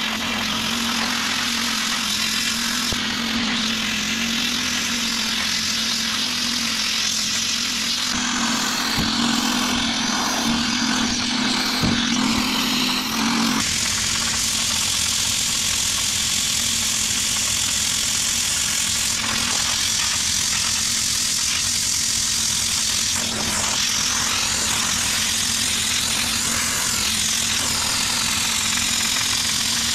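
Harbor Freight pressure-pot sandblaster blasting a teak rocking chair: a loud, steady hiss of compressed air and abrasive striking the wood. A steady low hum runs beneath it and stops about 13 seconds in.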